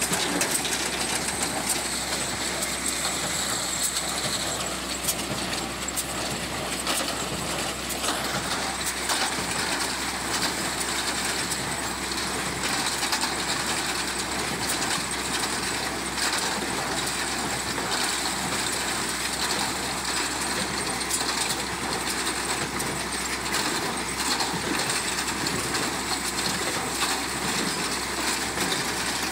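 Round-bale unwinder running: its chain conveyor and the hay elevator rattle and clatter steadily as the round bale is unrolled, over the continuous low hum of a tractor engine.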